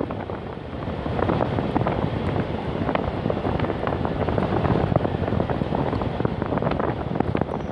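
Wind buffeting the microphone over the running of a vehicle driving along a road.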